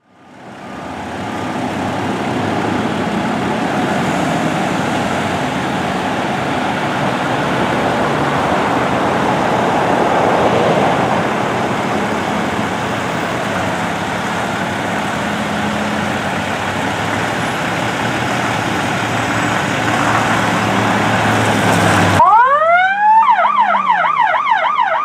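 Fire apparatus engines running, a steady broad noise that fades in over the first second. About 22 seconds in, the sound cuts and a fire department siren starts up with a rising wail, then switches to a fast yelp over a steady engine drone.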